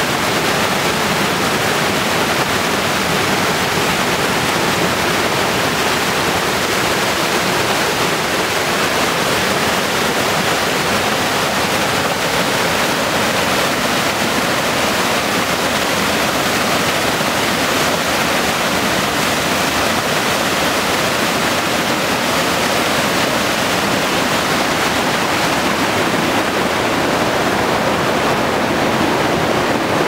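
Small waterfalls cascading over limestone boulders into a stream: a steady, loud rush of falling water, slightly duller near the end.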